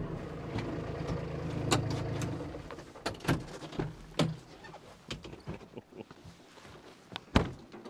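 Compact tractor engine running and then shutting off about two and a half seconds in. Scattered clicks and knocks follow as the cab door is opened and the operator climbs out, with one sharp knock near the end.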